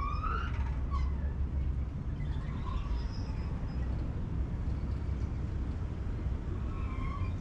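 City street ambience: a steady low rumble of traffic and wind, with a few short, high, rising cries at the start and again near the end.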